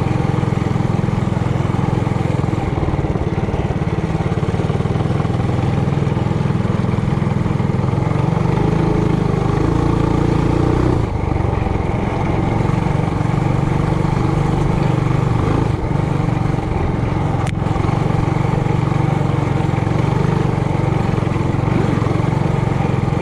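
Single-cylinder four-stroke engine of a Trailmaster Hurricane 200X mini bike running steadily under throttle while riding, its pitch rising and falling a little with the throttle. A single sharp tick about 17 seconds in.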